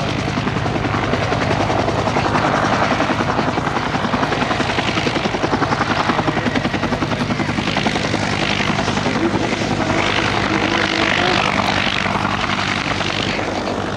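Westland Whirlwind HAR.10 helicopter, turboshaft-powered, flying low: steady engine and rotor drone with the main rotor's rapid, even chop as it lifts from the hover and climbs away.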